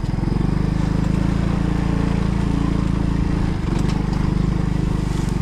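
A small engine running steadily, with a brief dip in level about three and a half seconds in.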